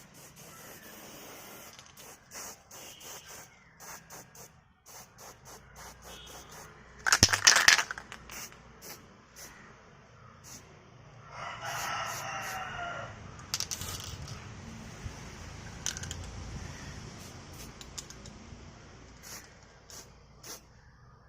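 Aerosol spray-paint can spraying a lure, a steady high hiss with repeated sharp clicks and rattles from the can and a loud metallic clatter about seven seconds in. A rooster crows once about twelve seconds in.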